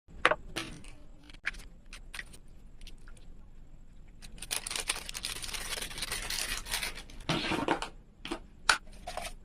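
Close-up kitchen food-preparation sounds: scattered sharp taps and clicks, then about three seconds of louder rustling and scraping, followed by a heavier knock and a few more taps.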